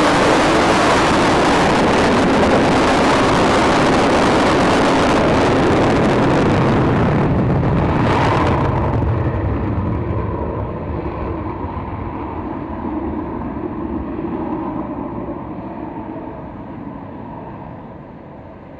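Aircraft engine noise during a takeoff run: loud and steady for the first half, then the high end drops away about nine seconds in and the sound fades steadily as the aircraft climbs away.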